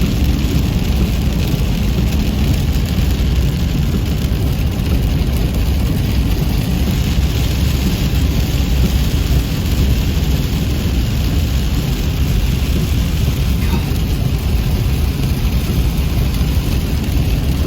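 Steady, loud low rumbling noise with no breaks, strongest at the bottom end.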